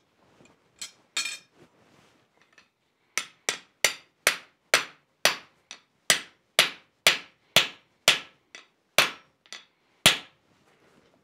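A blacksmith's cross-peen hand hammer strikes a steel round bar laid in the groove of a bottom swage set in the anvil's hardy hole. A couple of light metal clinks come first, then about sixteen steady, ringing blows, roughly two a second, starting about three seconds in.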